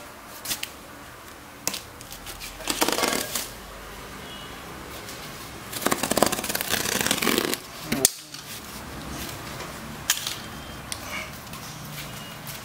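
Folding knife slicing through plastic packing tape on a cardboard box: two longer scratchy cuts, with scattered clicks and taps of the blade and hands on the box between them and one sharp click about eight seconds in.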